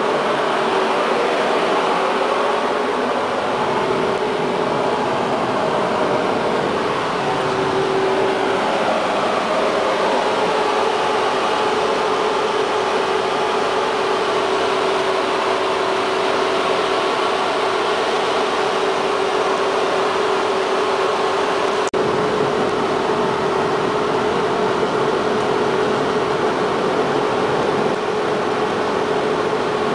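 Cabin noise of a Konstal 105Na tram: a steady running rumble with a continuous whine that steps slightly higher about eight seconds in, and a brief click later on.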